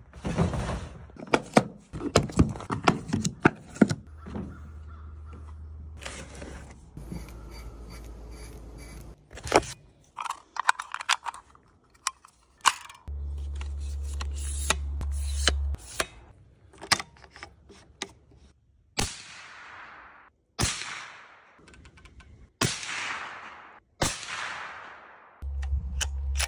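Clicks and clacks of a bolt-action rifle and its gear being handled, then four suppressed rifle shots a second and a half to two seconds apart, each trailing off in an echo. A deep, steady bass tone sounds in several stretches underneath.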